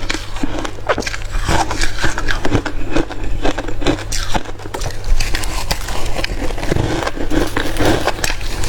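Close-miked chewing and crunching of hard crushed ice: a dense, irregular run of sharp crackles and cracks.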